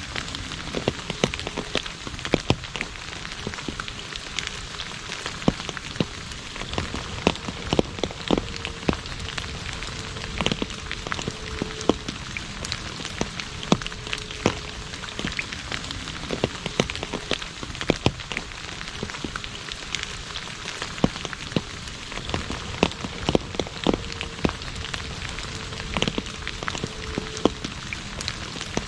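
Steady rain falling on an asphalt road: an even hiss of rain broken by many sharp, separate drop splashes.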